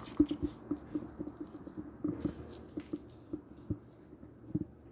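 Irregular small clicks and taps of hands working a crochet hook, pearl beads and tinned copper wire, thinning out near the end.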